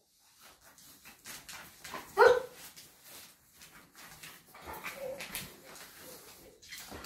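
Sighthound dog giving one short, loud bark or yelp about two seconds in, with fainter whines later and light clicks throughout.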